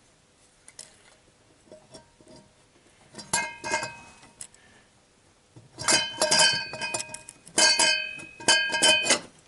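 Metal intake manifold being fitted over the cylinder-head studs of a VAZ 8-valve engine: metal-on-metal clinks and scrapes with brief ringing, a short cluster about three seconds in and a longer, denser run from about six seconds until near the end.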